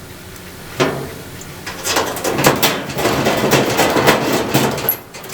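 Sheet-metal dryer parts being handled as a screw is fitted into the heat shield: a knock about a second in, then a run of rapid metal rattling, clicks and scraping.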